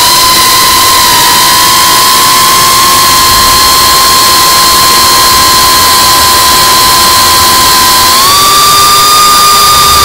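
GEPRC CineLog35 FPV drone's brushless motors and ducted propellers whining steadily under loud rushing noise, as heard from the drone's onboard camera. The whine steps up in pitch about eight seconds in as the motors spin faster.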